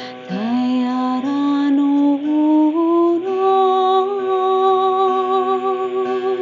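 A woman sings a wordless tone over the steady drone of a zither-like string instrument; her voice slides up from low about a third of a second in, climbs in a few small steps, then holds a higher note with a slight waver.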